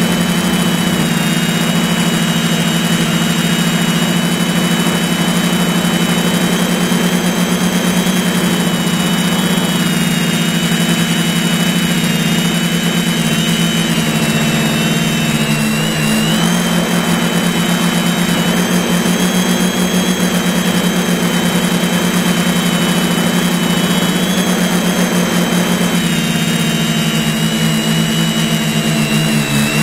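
Drone's electric motors and propellers heard close up from its onboard camera in flight: a steady, loud hum with a thin high whine that wavers slightly in pitch.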